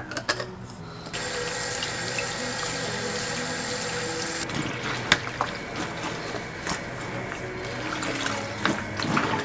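Bathroom faucet running into a plastic basin of clothes, switched on about a second in and eased off about four and a half seconds in, then hands sloshing and squeezing the laundry in the water, with splashes and clicks.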